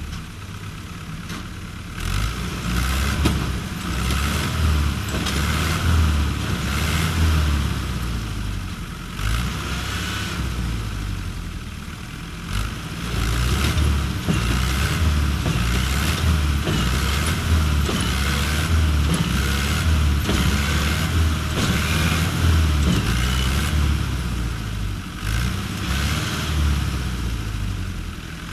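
Diesel farm tractor engine labouring under load, revving up and down in repeated surges as it strains to pull a trolley heaped with earth, its rear wheels bogged in soft ground.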